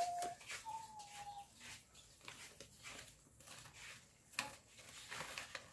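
Banknotes and bouquet wrapping rustling and tapping as they are handled. A faint, pitched call sounds near the start, about a second long, holding and then falling slightly in pitch.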